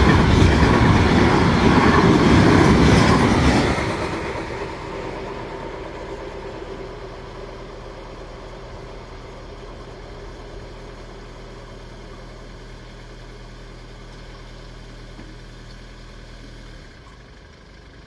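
The last wagons of an intermodal freight train rumble and clatter over the level crossing. The end of the train passes about four seconds in, and the noise drops away and fades as the train leaves. A low steady hum carries on underneath and stops shortly before the end.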